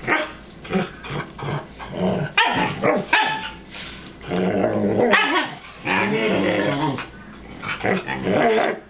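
Two dogs, a husky and a tan dog, play-fighting with growls and short barks, including two longer growls a little past the middle.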